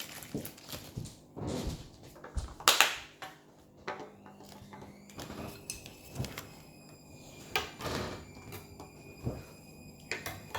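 Small plastic toy packaging and figures being handled: irregular clicks, taps and rustles, with a few louder knocks.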